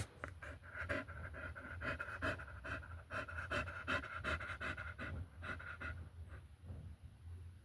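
A dog panting quickly and rhythmically, about three breaths a second, fading out about six seconds in.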